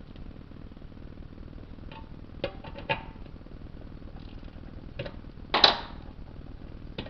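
Metal hand tools clicking and clinking while bolts are tightened by hand: scattered sharp clicks, with one louder short rattle about five and a half seconds in.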